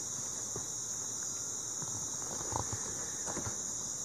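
Steady, high-pitched chorus of night insects trilling without a break, with a few faint clicks about halfway through.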